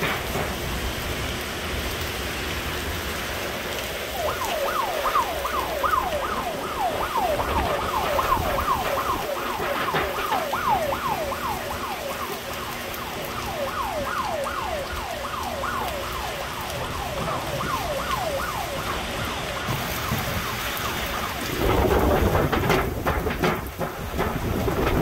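Hurricane-force wind and heavy rain, with an alarm going off a few seconds in that repeats a falling whoop about twice a second, then stops. A stronger gust rises near the end.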